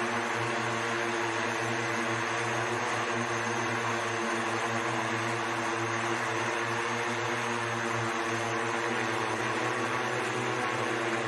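SkyDrive SD-03 flying car's eight electric propellers hovering, a steady hum with several held tones over an even rushing noise.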